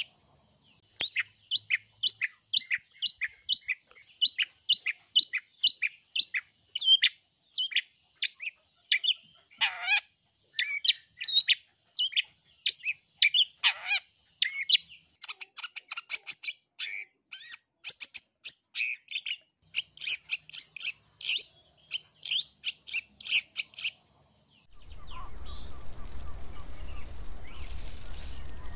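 Long-tailed shrike (cendet) singing a rapid run of short, sharp, harsh chirps, several a second, broken twice by a long downward-sweeping call. About 25 seconds in the song stops and a steady hiss with a low hum takes over.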